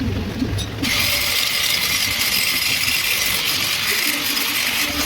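Welding on a vehicle's shock-absorber chassis support: a steady hissing crackle that starts about a second in and holds evenly.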